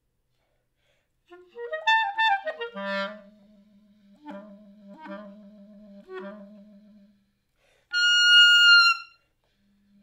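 Solo clarinet: after about a second of silence, a quick flurry of notes, then a low held note broken by short accented figures. After a brief pause comes a loud high note held for about a second, and the low note returns just before the end.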